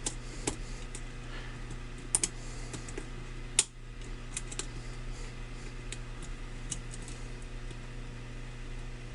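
Small irregular metallic clicks of a lock pick working the pins of a lock under light tension, as pins are lifted and set. A sharper pair of clicks about two seconds in and a louder single click around three and a half seconds.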